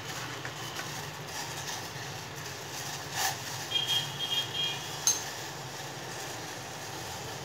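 Water and tea powder at a rolling boil in a steel pot on a gas burner, a steady bubbling over a low hum. A couple of faint knocks, and a short run of high beeps about four seconds in.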